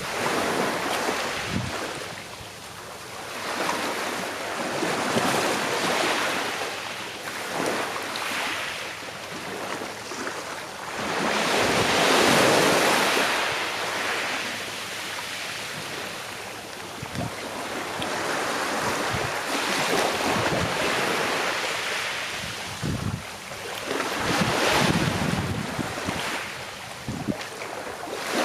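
Sea waves washing onto a shore, the surf swelling and falling away every few seconds, with wind on the microphone. The biggest wave breaks about twelve seconds in.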